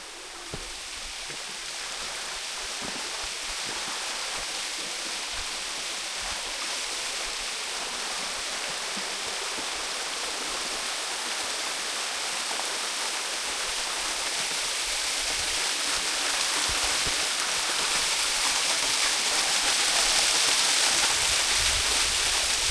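Rushing water, a steady hiss that grows gradually louder throughout.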